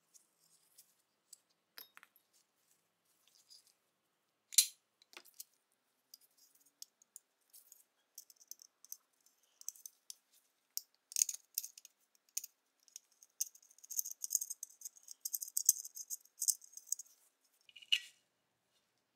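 Small metal clicks and scrapes from a rusty pistol magazine being taken apart by hand, with one sharp click about four and a half seconds in. From about eleven seconds the long coil magazine spring jingles and rattles as it is drawn out of the magazine body.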